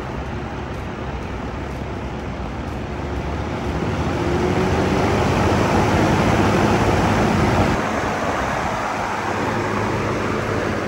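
DeWalt DXF2490 24-inch drum fan running, its three aluminium blades pushing a steady rush of air. The rush grows louder about four seconds in and eases slightly near the end.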